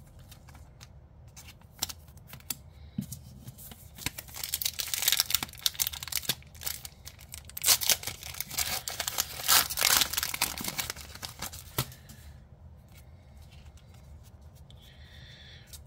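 A foil trading-card booster pack being torn open, its wrapper crinkling and crackling in a run of tears from about four to twelve seconds in, loudest in the middle. Quieter rustling of cards being handled comes before and after.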